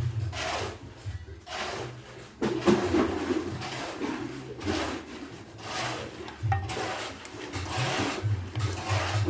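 Irregular rubbing and scraping handling noise, as of an electrical cable being handled and turned close to the microphone.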